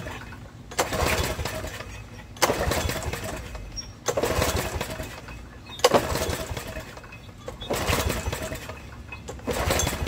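Briggs & Stratton 11 hp single-cylinder mower engine being pull-started six times, about every second and a half to two seconds. Each pull spins it over with a whirring rush of the recoil starter, and it never fires. The engine is flooded, with fuel overflowing from a new carburetor whose needle the owner thinks is not seating.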